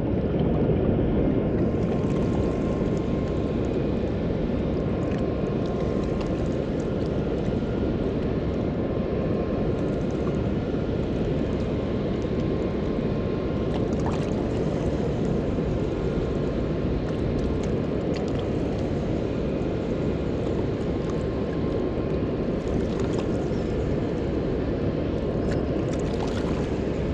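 Steady, even rush of water pouring over a river dam spillway.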